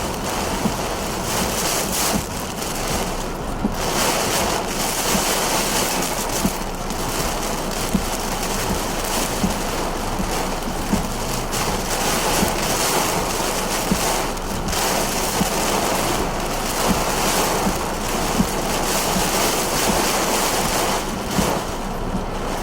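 Hurricane wind and heavy rain: a loud, continuous rush that gusts up and down every second or two, buffeting the microphone, with scattered sharp ticks through it.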